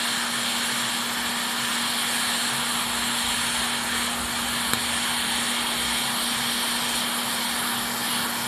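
Hot air rework station blowing a steady hiss of hot air through a wide nozzle onto a USB-C charge port, melting its solder to free the port. A low steady hum runs underneath, with one faint click about halfway through.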